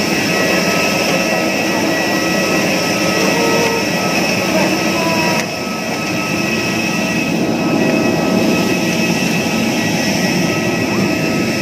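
Jet airliner's engines running close by: a steady loud rush with a high whine of several steady tones, dipping briefly about five and a half seconds in.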